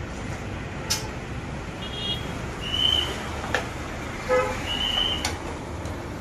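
A few sharp metallic clicks of a long T-handle wrench working bolts on a scooter engine, over a steady low background hum. Several short high-pitched tones sound in between.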